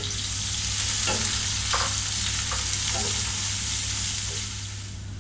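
Sliced onions sizzling in hot desi ghee in a granite-coated pot, stirred with a wooden spatula that scrapes the pan a few times about a second apart. The sizzle eases slightly near the end.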